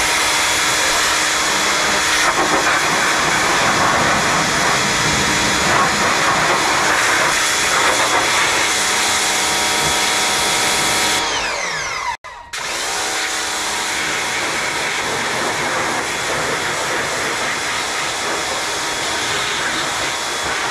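Craftsman pressure washer running steadily while its wand sprays water over a car's engine bay. About eleven seconds in, the motor's pitch falls away and the sound briefly stops, then it starts again and keeps spraying.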